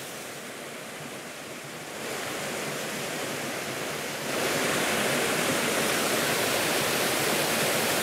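Small waterfall and stream rushing steadily over rocks, a continuous hiss of falling water that gets louder in two steps, about two seconds in and again just past four seconds.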